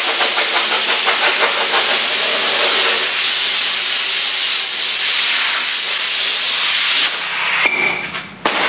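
Compressed-air blow gun blowing sanding dust off a plastic bumper cover: a loud, steady hiss of air that cuts off about seven seconds in, then one short blast near the end.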